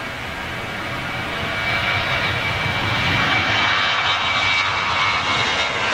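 Boeing 737's CFM56 turbofan engines at take-off thrust during the take-off run and rotation. The jet noise grows louder about two seconds in, with a steady high fan whine over it.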